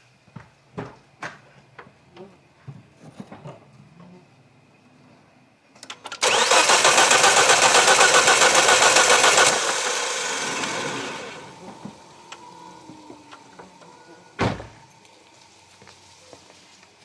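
A 2006 Volvo V70's 2.4-litre five-cylinder engine is cranked on the starter for about three seconds without firing, its fuel supply cut and a compression gauge fitted in cylinder 2, pulsing in an even quick beat. A fainter sound tails off over the next two seconds. A few light clicks come before the cranking and a single sharp knock comes near the end.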